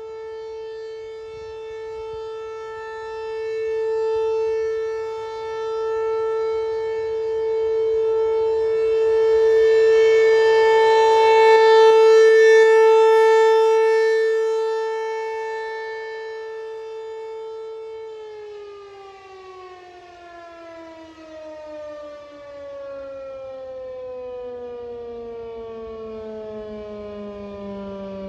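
ASC T-128 outdoor warning siren sounding the steady alert tone, swelling and fading in loudness as the rotating horn sweeps around. About two-thirds of the way through, the tone begins a long, steady fall in pitch as the siren winds down at the end of the alert signal.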